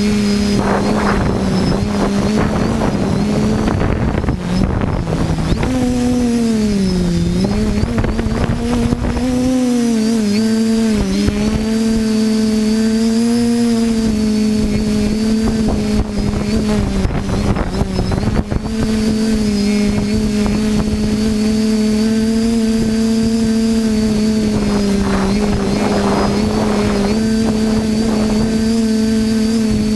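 TBS Discovery quadcopter's electric motors and propellers running in flight: a steady buzzing whine whose pitch dips and swings with throttle changes several seconds in, then holds level, over rushing wind noise.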